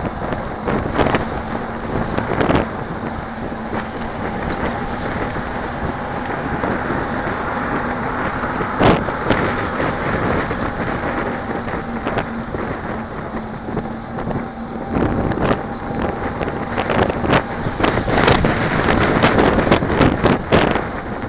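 Wind rushing over the microphone of a camera riding on a Gotway MSuper2 electric unicycle as it rolls along the road, mixed with road noise. Sharp knocks from bumps come at odd moments, one loud about nine seconds in and a cluster near the end, and a faint steady whine runs for several seconds in the middle.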